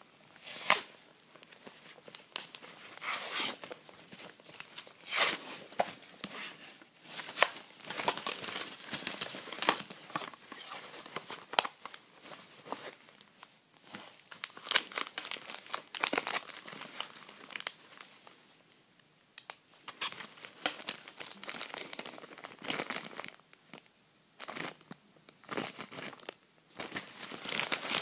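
Plastic wrapping and foil sachets crinkling and rustling in irregular sharp crackles as the contents of a small metal survival tin are handled and unpacked, with brief quieter pauses.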